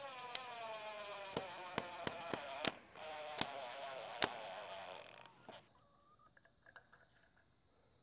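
Cordless drill driving screws into a wooden fence post, its motor whirring and dropping in pitch as it loads up, in two runs with a short break about three seconds in and sharp clicks along the way. After about five and a half seconds the drill stops and a steady high insect buzz remains.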